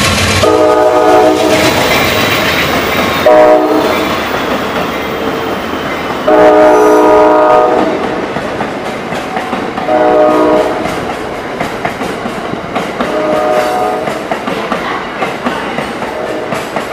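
Amtrak GE Genesis P42DC diesel locomotive's air horn blowing a chord in a series of long and short blasts: a long one starting about half a second in, a short one, another long one, another short one, and a fainter blast near the end. Under the horn, the passing passenger cars rumble steadily and their wheels click over the rail joints.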